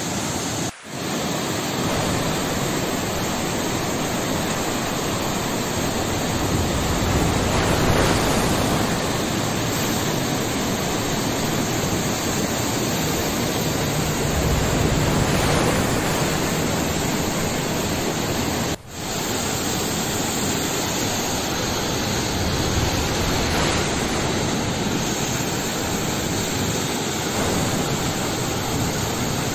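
Floodwater pouring over a concrete road edge in a churning cascade: a steady, even rushing of water. It cuts out briefly twice, about a second in and again about two-thirds of the way through.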